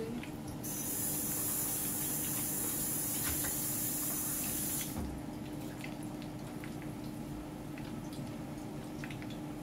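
Water running from a kitchen tap for about four seconds, then shut off suddenly, followed by a few faint clicks.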